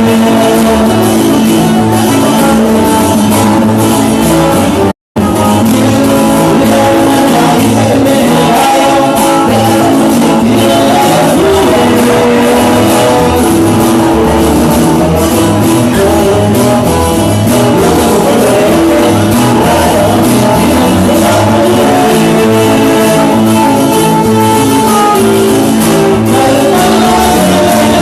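A band playing loud music with singing and guitar, echoing as in a large hall. The sound cuts out completely for an instant about five seconds in.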